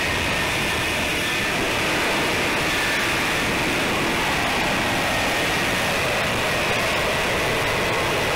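F-35B jet hovering on its engine and shaft-driven lift fan: a steady, loud rush of jet noise with a faint high whine that sinks slowly in pitch.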